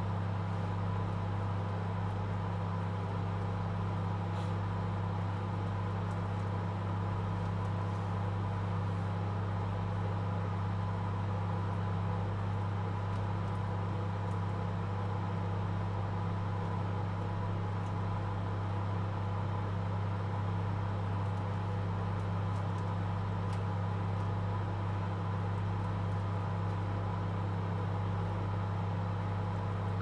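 Microwave oven running mid-cycle: a steady, even low hum with a fainter higher whine over it, and a couple of faint ticks.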